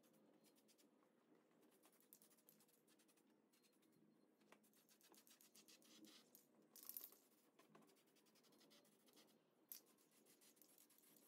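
Near silence: faint scratching and handling noises, with a brief louder scratchy noise about seven seconds in and another near the end.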